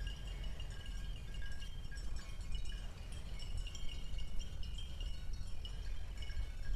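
Small metal bells tinkling irregularly in short ringing notes at several pitches, over a steady low rumble.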